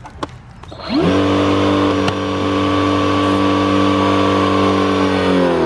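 A sharp click, then the Greenworks Pro 60V battery pressure washer's motor and pump start about a second in, climb quickly to speed and run with a loud steady hum before winding down near the end. It starts up the moment the battery goes in because its switch was already on.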